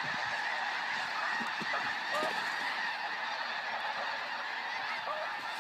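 A huge flock of snow geese in flight, calling constantly: a steady mass of many overlapping calls.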